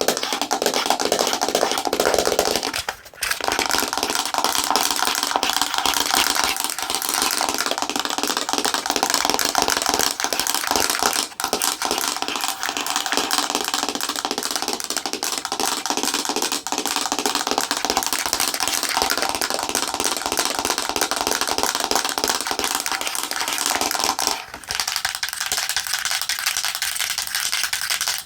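Long fingernails tapping and scratching rapidly and hard on a camera, a dense run of clicks and scrapes. It breaks off briefly about three seconds in and again near the end, after which it sounds thinner.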